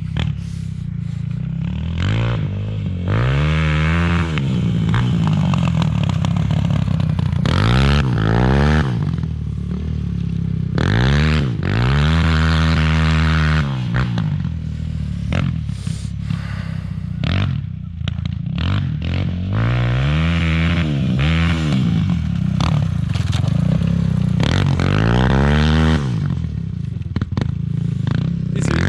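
Single-cylinder four-stroke dirt bike engines being ridden on sand, revving up and falling back again and again, the pitch climbing and dropping every second or two.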